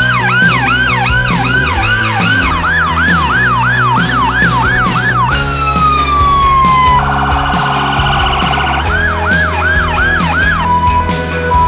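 Emergency vehicle siren on a fast yelp, about three sweeps a second, then a falling wail about five seconds in, a rapid warble, a few more yelp sweeps and a steady tone near the end. Background music with a steady beat plays under it.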